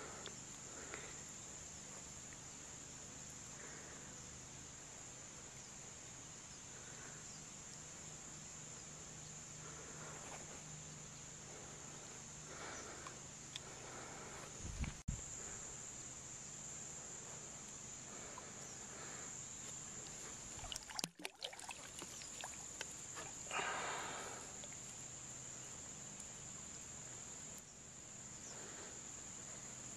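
Steady, high-pitched chirring of an insect chorus. A few brief knocks and rustles come about halfway through.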